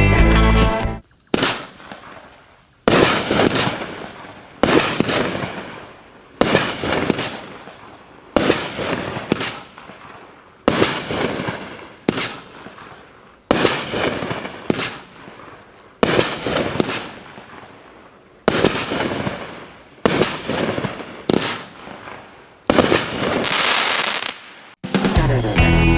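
A 200g multi-shot cake firework firing a sequence of about fifteen shots, one every second and a half or so. Each is a sharp report that fades out over the following second.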